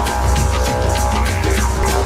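Loud instrumental music: a fast, steady drum beat over a low sustained tone.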